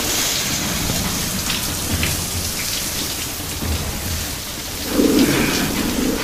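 Heavy sheets of water falling like a downpour, with a low, rumbling swell about five seconds in.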